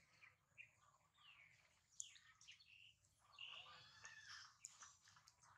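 Faint birds chirping in the background: a string of short, high calls and twitters.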